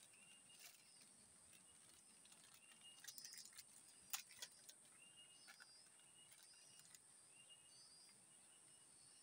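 Faint outdoor wildlife ambience: a bird repeating a short whistled note every second or so, with higher chirps between, over a steady high insect drone. A cluster of sharp clicks and taps comes about three to four and a half seconds in.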